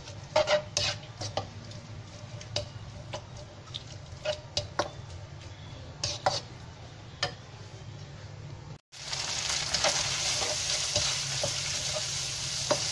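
Yellow egg noodles and flat rice noodles stir-frying in a nonstick wok: a spatula scrapes and knocks against the pan over a steady sizzle. The sound cuts out briefly about nine seconds in, then the sizzling comes back louder.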